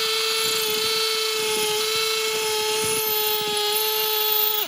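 Milwaukee 2804 M18 FUEL hammer drill in hammer-drill mode, drilling into concrete with a quarter-inch multi-purpose bit at high speed. The hammer mechanism engaging at about 32,000 beats per minute makes a loud, steady, high-pitched buzz. The buzz cuts off suddenly at the very end as the bit reaches its set depth.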